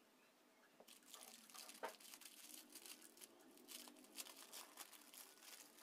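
Small clear plastic bag crinkling as it is handled, starting about a second in and going on in a dense crackle.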